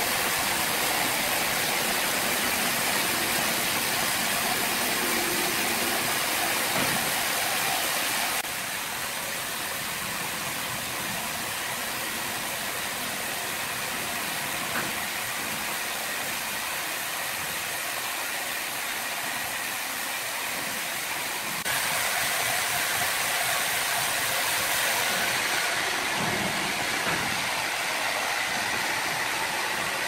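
Horizontal band sawmill running, its band blade sawing lengthwise through a large timber slab as the carriage travels along the rails: a steady, even noise. The level drops abruptly about eight seconds in and comes back up about twenty-two seconds in.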